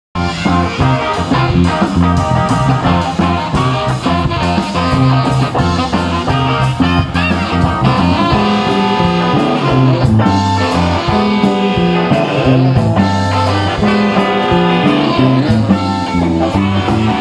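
Live rock-blues band playing: saxophone over electric guitar, bass guitar and drums, with a strong bass line and a steady drum beat.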